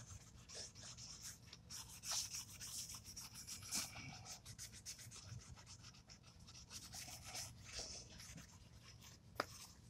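Super-fine steel wool rubbed back and forth over the bare aluminum face of a cylinder head, scrubbing off carbon and old gasket residue: a faint scratchy hiss in uneven strokes, with one sharp tick near the end.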